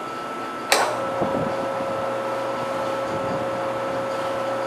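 Sharp LMV-50 turret milling machine running with its spindle drilling 6061 aluminium, a steady whine over machine noise. About three-quarters of a second in there is one sharp click, and the whine then settles to a lower steady pitch.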